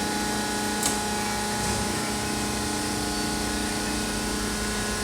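Industrial recycling baler running with a steady machine hum carrying several constant tones, and a short click about a second in.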